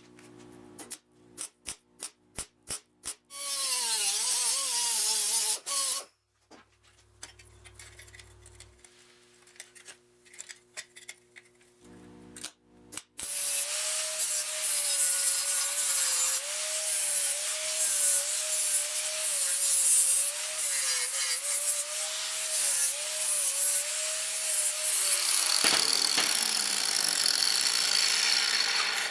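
Power grinder working on sheet steel in two spells: a short one of about two and a half seconds, then a long one of about twelve seconds that ends in the falling whine of the disc spinning down. A few sharp clicks come before the first spell.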